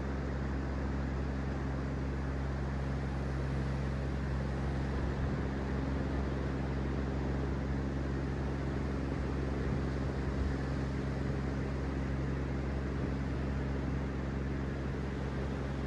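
A steady, even wash of noise with a constant low hum underneath, unchanging throughout.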